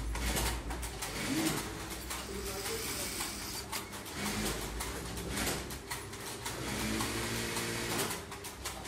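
Industrial sewing machines, one a Juki, running with a steady low hum, with scattered clicks. Pigeons coo now and then over it, about a second and a half in, around four seconds, and again near the end.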